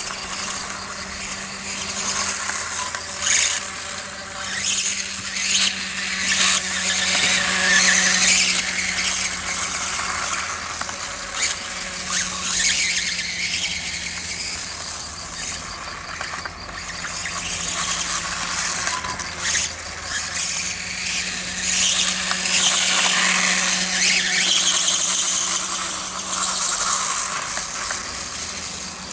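Reely RC dirtbike riding: a high-pitched whine from its electric drive that swells and drops again and again with the throttle, with scrabbling tyre noise.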